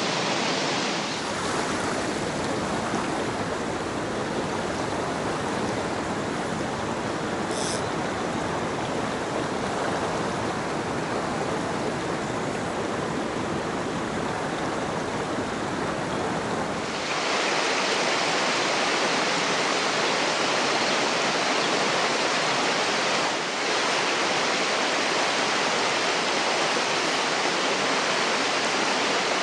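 River water rushing steadily over stones, a dense wash of water noise whose tone shifts abruptly about a second in and again about halfway through.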